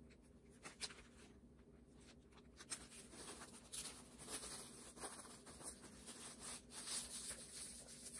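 Plastic cling wrap crinkling and rustling as it is rolled up around piped buttercream into a log. The crinkling gets busier from about three seconds in, over a faint steady hum.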